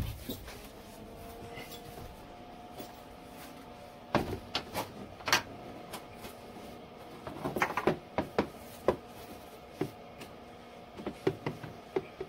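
A sharp click, then a steady machine hum with scattered knocks and clicks as a MIG welding gun, its cable and a welding helmet are handled, readying to weld.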